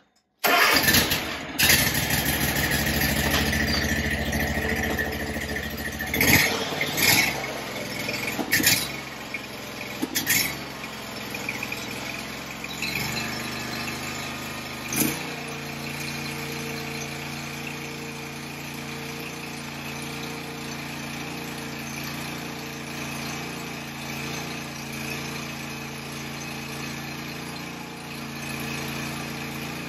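Zero-turn riding mower's engine running, with a few sharp clanks in its first ten seconds. About halfway through, the engine settles into a steady, even hum.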